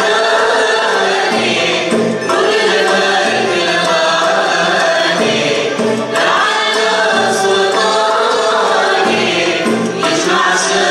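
A traditional Algerian orchestra of ouds and upright-held violins playing while a group of singers sings together, in phrases of about four seconds each.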